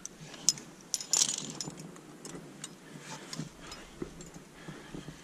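Metal climbing gear, carabiners and quickdraws on the harness, clinking in scattered light clicks, with a brief scuff about a second in.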